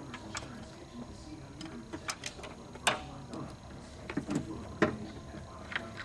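Scattered sharp clicks and taps of hands working small plastic electrical connectors and test-lead pins, over a faint steady low hum.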